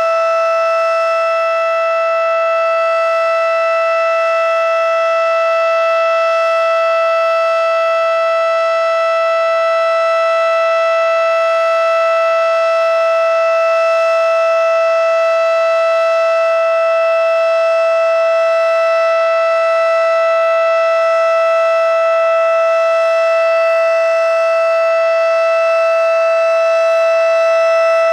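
Federal Signal Model 5 electromechanical warning siren sounding a steady tone during its monthly test, holding one unchanging pitch with strong overtones.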